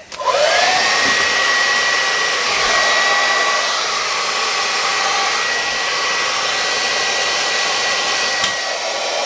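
Hair dryer blowing onto a VCR's freshly cleaned video heads to dry them. It is switched on at the start, its motor whine rising quickly to a steady pitch, runs steadily, and is switched off at the end as the whine falls away.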